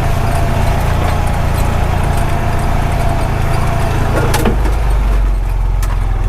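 A Honda Pioneer 520 side-by-side's single-cylinder engine running steadily. About four and a half seconds in there is a sharp click, and the engine note drops lower.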